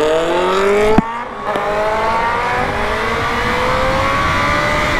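Suzuki Hayabusa's inline-four engine accelerating, its pitch rising under throttle, with a quick click and brief dip about a second in as it shifts up through the quickshifter, then pulling again with a slowly rising pitch, over wind rush.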